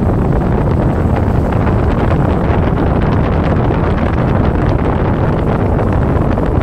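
Wind buffeting the microphone: a loud, steady low rumble with no let-up.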